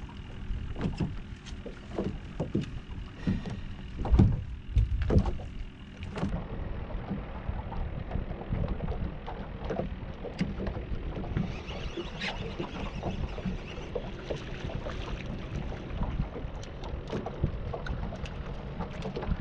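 Water lapping and slapping against a small boat's hull, with irregular knocks and a few heavier thumps about four to five seconds in.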